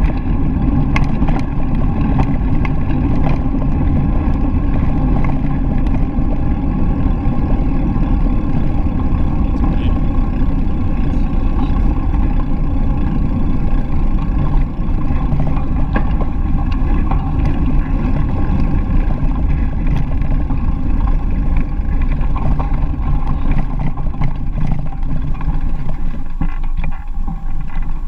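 Steady low rumble of wind buffeting an action camera's microphone while cycling, with bicycle tyres rolling over a gravel path and scattered small knocks from bumps.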